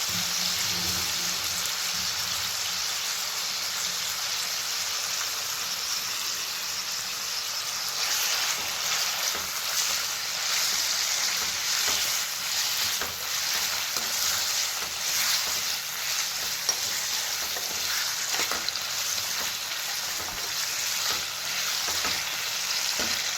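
Marinated chicken pieces sizzling as they fry in hot oil in a pan, a steady hiss with crackles that grow more frequent from about eight seconds in.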